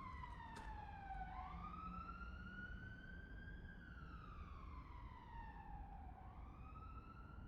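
Emergency vehicle siren wailing, its pitch sliding slowly down and back up again, about two and a half seconds each way, over a low steady rumble.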